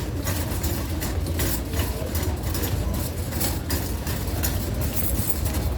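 Shopping cart being pushed along a store floor: a steady low rumble from the wheels with frequent light rattling.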